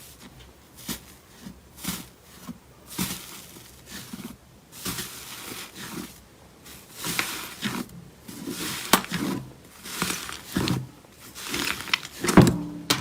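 Slime being squished and pressed, giving a run of irregular wet squelches and sharp popping clicks.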